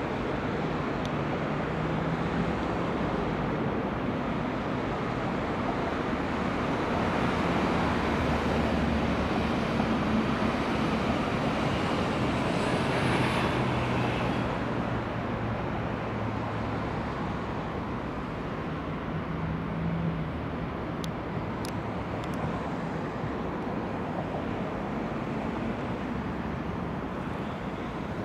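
Electric multiple units running through a busy rail corridor: a steady rolling noise with low motor hums, swelling toward the middle as the trains pass close, then easing off into a general hum of rail and city traffic.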